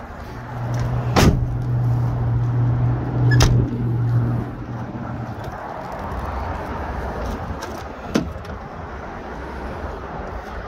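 Honda Ridgeline pickup's doors and latches clunking: two sharp clunks about one and three and a half seconds in, over a steady low hum that stops about five seconds in, then a single click near eight seconds as the rear passenger door is opened.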